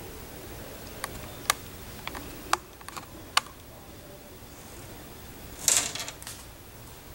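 Several separate sharp clicks and taps of a small hard object being handled, then a brief rattling cluster of clicks about six seconds in.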